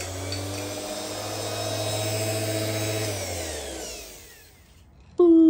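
Electric random orbital sander running steadily on bare metal, taking off surface rust, then switched off about three seconds in, its pitch falling as it spins down. A loud steady whine starts just before the end.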